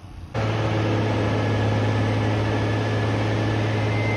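Diesel engine of a container handler running loudly as a container is set onto the truck trailer's fittings. It is a steady low hum that starts abruptly a moment in, and a thin high whine joins near the end.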